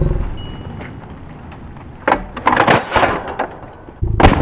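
Closing music fades out, then 12-gauge DP-12 double-barrel pump shotgun fire: a cluster of sharp cracks about two seconds in, and one loud shot near the end.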